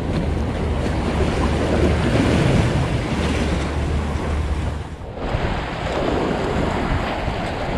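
Waves washing over rocks, a continuous rushing that eases briefly about five seconds in, with wind rumbling on the microphone.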